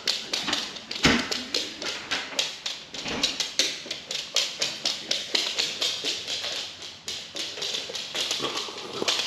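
A dog's claws clicking rapidly and steadily on a hard parquet wood floor as it prances around excitedly, with a single thump about a second in.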